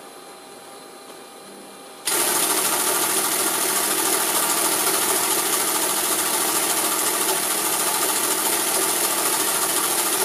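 Mechanical counter drums and gear train of a Decca digital navigation indicator clattering as its latitude setting knob is turned by hand and the latitude readout spins. The clatter starts abruptly about two seconds in and keeps up without a break.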